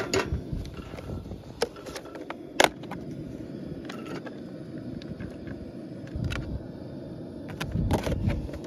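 Cooking-prep handling at a camp stove: a metal saucepan clanks onto the stove's steel grate, then a few sharp knocks as chicken is tapped out of a plastic tub into the pot, the loudest about two and a half seconds in. Near the end the empty plastic tub crackles in the hands, all over a steady low rumble.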